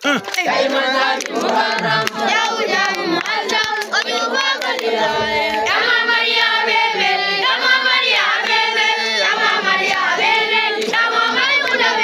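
A group of children's voices singing together, many voices overlapping.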